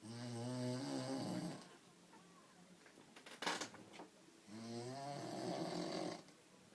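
A man snoring: two long snores about three seconds apart, each with a low buzzing tone, and a short sharp noise between them.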